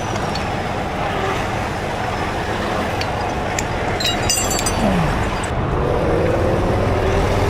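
Heavy rotator tow truck's diesel engine running steadily, with a few sharp clinks about four seconds in.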